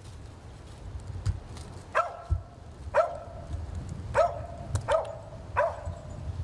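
Kemmer Cur squirrel dog barking five times, short barks about a second apart: barking treed at a squirrel's leaf nest.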